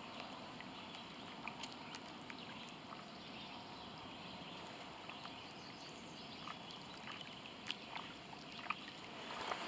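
Small waves lapping faintly at a lake's edge: a steady soft wash with scattered little splashes and clicks, a few louder ones near the end.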